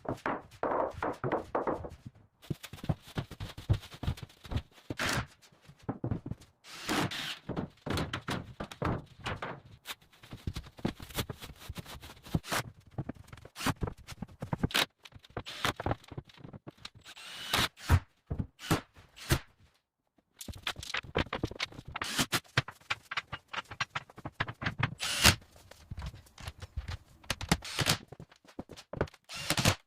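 Building work: a quick jumble of knocks, thuds and tool clatter, with a short break about twenty seconds in.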